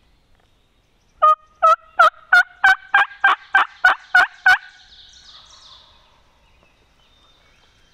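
Turkey call blown by a hunter with a hand cupped at his mouth: a loud run of about eleven short, sharp notes, roughly three a second and rising slightly in pitch, stopping about four and a half seconds in. It is a locator call, meant to make the gobblers answer so they can be found.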